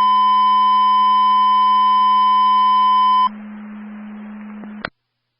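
Dispatch alert tone received over a radio scanner: one steady high tone held for about three seconds over a low hum. It gives way to about a second and a half of radio hiss, and ends in a click as the transmission cuts off.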